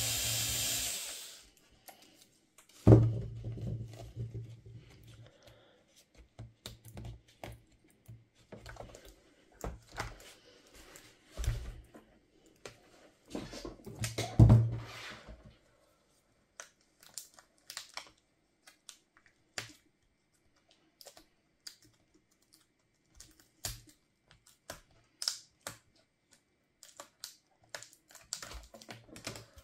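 A Dell Latitude 3500 laptop being taken apart by hand: scattered light clicks and taps of plastic parts and small tools. A short scraping hiss comes at the very start, and heavier knocks come about three seconds in and again near the middle.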